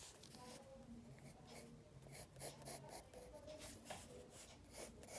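Faint scratching of a pencil drawing on paper, in short irregular strokes.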